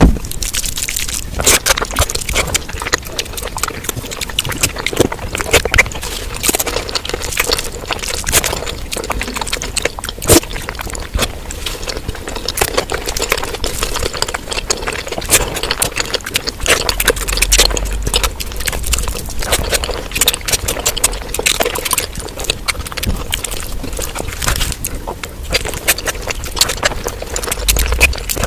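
Close-miked eating sounds sped up many times over: rapid, wet chewing, lip-smacking and slurping of mutton fat curry, a dense unbroken run of clicks and squelches.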